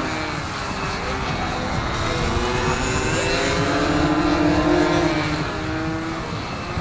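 Several nitro-fuelled .46 to .55 size glow engines of radio-controlled Panic model biplanes running together in flight. Their overlapping pitches rise and fall as the planes pass and change throttle.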